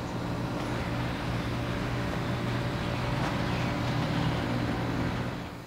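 Char-Griller Gravity 980's draft fan blowing into the charcoal hopper, a steady hum that drops away near the end.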